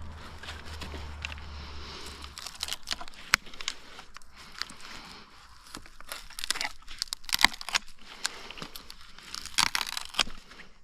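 A low steady motor hum stops about two seconds in. It is followed by irregular crackling, snapping and crunching of dry branches and twigs, loudest in clusters near the middle and the end.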